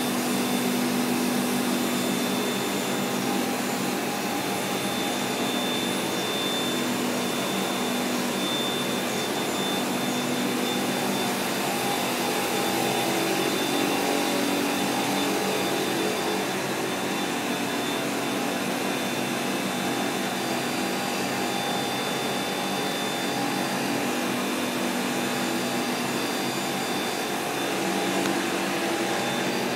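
Steady machine hum and air rush of a semiconductor fab cleanroom: air-handling fans and process equipment running continuously, a few steady hums and a thin high whine over an even whoosh of moving air.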